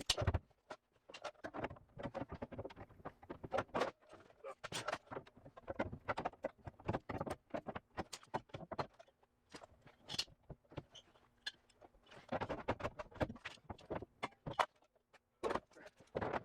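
Irregular light knocks, clicks and rattles of metal parts and hand tools being handled and tapped while fitting sheet-metal body panels, with a faint steady hum beneath.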